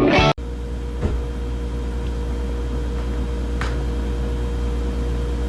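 Guitar music cuts off just after the start, giving way to a steady low mechanical hum with a faint steady whine over it and a couple of faint clicks.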